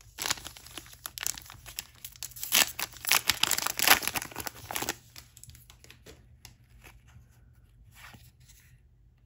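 A trading card pack's wrapper being torn open and crinkled: a run of tearing and crackling for the first five seconds or so, loudest around three to four seconds in, then only a few faint rustles and ticks.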